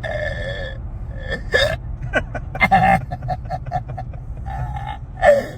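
A person's hiccups, deep and burp-like, mixed with laughter: a held vocal sound, then sharp jolts and a quick run of short pulses, the loudest near the end. Under it is the low rumble of a truck cabin on the move.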